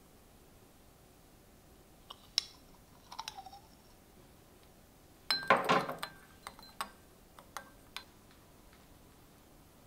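Kitchenware being handled: a few light clicks, a short scrape, then a cluster of ringing clinks like glass or ceramic knocking together about five seconds in, followed by several single clicks.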